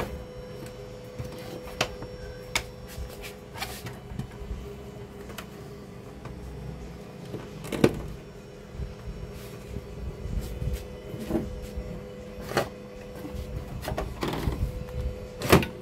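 Irregular clicks and knocks of hands handling a CRT TV's chassis, wiring and a cardboard box, over a steady low hum. Two knocks stand out, about eight seconds in and near the end.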